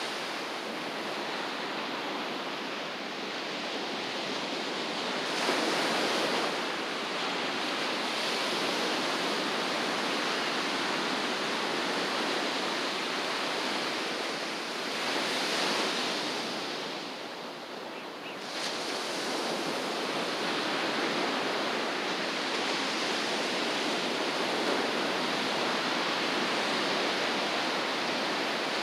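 Ocean surf breaking and washing onto the beach, a continuous rush that swells louder twice, about six and sixteen seconds in.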